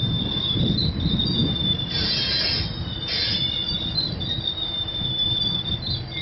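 Loaded freight flatcars rolling slowly past, their steel wheels squealing in a steady high tone over a low rumble. Two brief, harsher screeches stand out about two and three seconds in.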